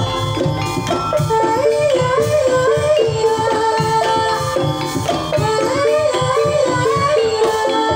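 Live Javanese Banyumasan gamelan playing a tayub piece: wooden-keyed instruments struck with mallets, kendang drums and gongs, with a female sinden singing a gliding melody over them.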